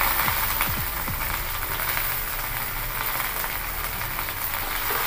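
Sliced onion frying in hot oil in a non-stick kadai, a steady sizzle.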